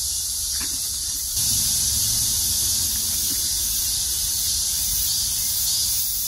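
Cicadas shrilling in a loud, steady summer chorus from the trees, growing louder about a second and a half in, with a low rumble beneath.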